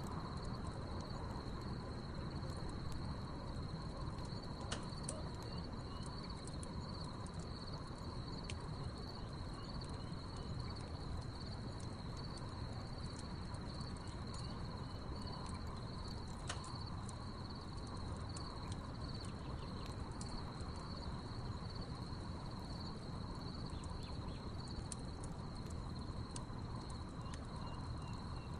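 Crickets chirping in a steady high trill, with a fainter, lower steady trill beneath, over a wood fire whose logs crackle with scattered sharp pops.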